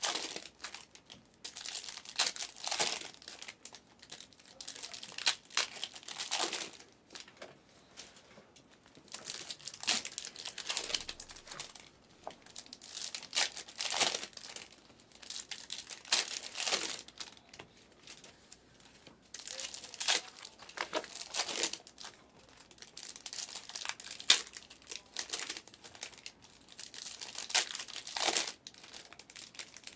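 Foil trading-card pack wrappers crinkling and tearing as packs of Panini Select basketball cards are ripped open, in repeated crackly bursts with short pauses between.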